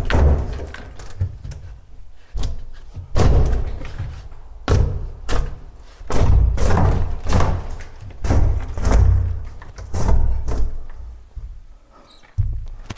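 Heavy blows knocking out an old bathroom wall partition during demolition, each one a deep thud with a rattle of loosened debris, coming irregularly about once a second.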